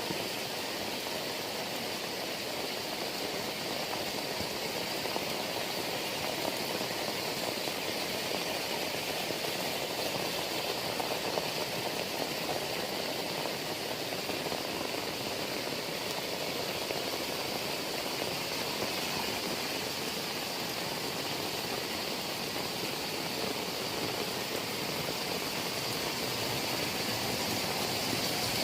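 Heavy rain falling steadily: a dense, even hiss that holds at the same level throughout.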